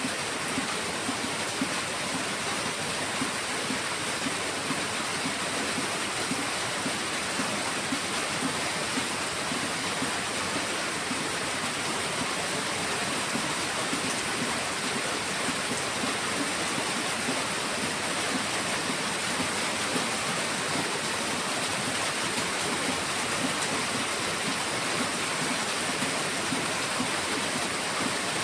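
Heavy rain falling steadily: a dense, even hiss of water with small pattering spikes and no change in intensity.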